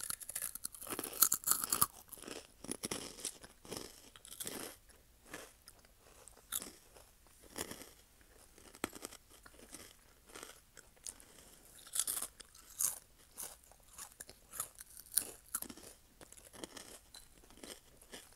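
Crunchy orange snacks being bitten and chewed close to a wired earphone's microphone: irregular sharp crunches, thickest in the first two seconds, then scattered bites and chews.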